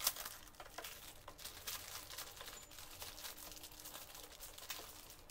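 Plastic laptop packaging crinkling and rustling as it is handled and pulled away, a faint, irregular crackle.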